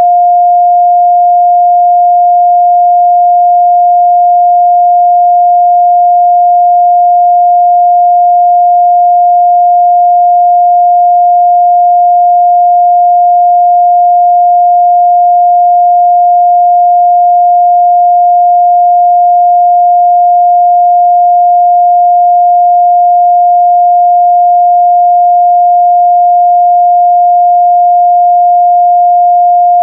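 A steady, loud pure sine-wave test tone at 706 Hz, one unchanging pitch held throughout.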